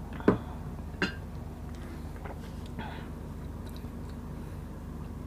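Close-miked chewing and eating sounds, with two sharp clicks about a third of a second and a second in, and a short soft hiss about three seconds in, over a steady low hum.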